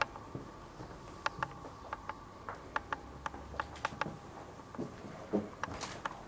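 Irregular light clicks and ticks, some in quick pairs, over a faint steady whine: handling noise from a handheld camera carried through a room.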